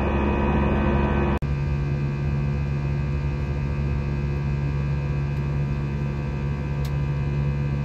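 Steady in-flight cabin drone of an Airbus A319: engine hum with several steady tones over airflow hiss. It breaks off for an instant about a second and a half in and resumes with a slightly different set of tones.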